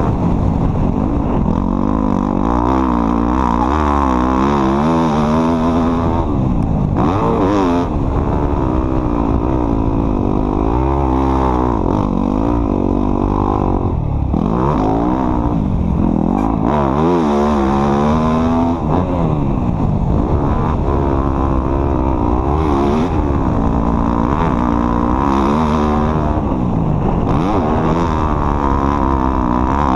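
Off-road vehicle engine running while being driven, its pitch rising and falling over and over as the throttle is opened and closed.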